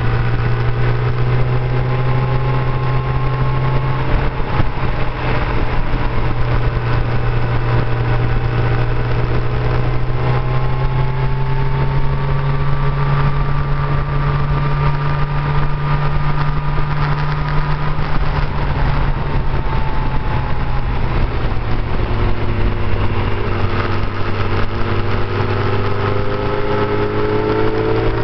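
Motorcycle riding at road speed: the engine runs steadily, its pitch slowly rising and falling with the throttle through the bends, over a constant rush of wind.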